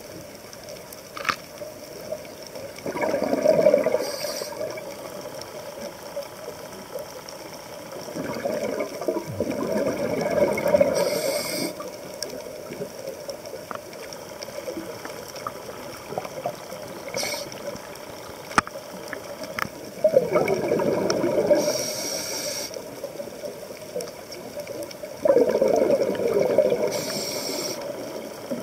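Scuba diver breathing through a regulator underwater: four breaths, each a bubbling rush of exhaled air followed by a short hiss, several seconds apart.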